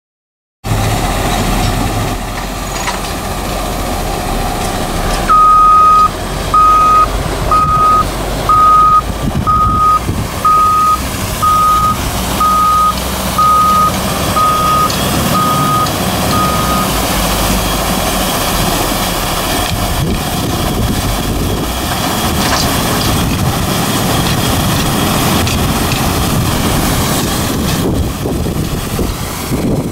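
Steady mechanical noise of a working wash plant, with its conveyors and screen deck running. A reversing alarm, most likely the wheel loader's, beeps about once a second, about a dozen times, starting about five seconds in.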